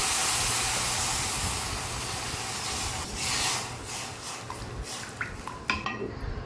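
Water poured from a jug into a hot steel pan of ghee-roasted bansi rava (semolina), hissing loudly as it hits the hot pan; the hiss dies away over about three seconds. A wooden spoon then stirs the wet semolina in the pan, with a few light knocks.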